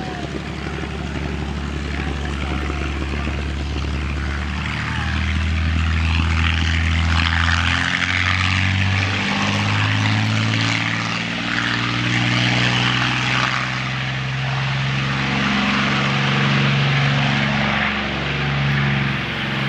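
P-51 Mustang's V-12 piston engine and propeller running at high power as the fighter rolls down the runway. The deep engine note steps up in pitch several times and grows louder toward the middle, then holds steady.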